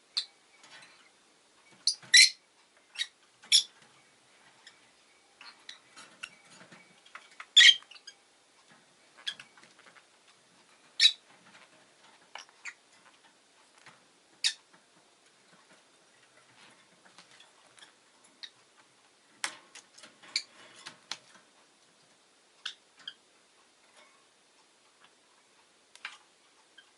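Rosy-faced lovebird giving short, sharp chirps and squeaks at irregular intervals, a few of them louder than the rest.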